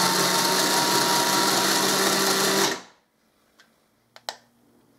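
Cheap battery-powered one-handed mini chainsaw running unloaded with its chain cover removed, a steady motor-and-chain whine with the sprocket turning at about 2200 RPM; it stops about three seconds in. A few light clicks follow.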